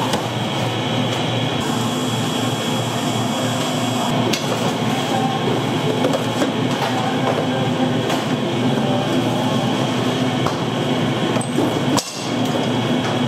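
Bakery machinery running steadily with a continuous clattering rattle and a thin high whine above it; the noise drops out for a moment about 12 seconds in.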